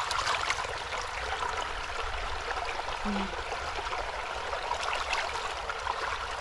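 Steady rushing hiss of trickling water, with a few light clicks as eggs are picked up and handled.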